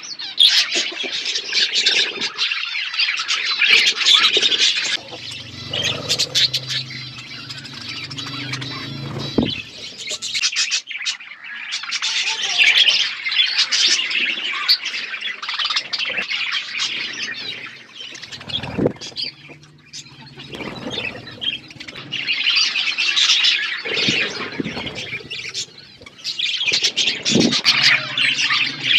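A flock of budgerigars chattering and chirping continuously, many birds calling over one another, with occasional harsher squawks.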